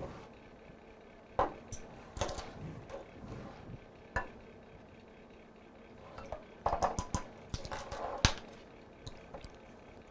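Kitchen utensils and dishes clinking and knocking while muffin batter ingredients are handled: scattered single knocks, then a quick run of clinks about seven to eight seconds in.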